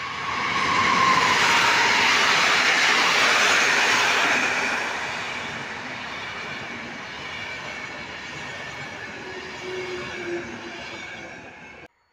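Passenger train hauled by an EP09 electric locomotive passing close by: the noise of its wheels on the rails, loudest in the first few seconds as the locomotive and front coaches go past, then slowly fading as the coaches roll by. It cuts off abruptly near the end.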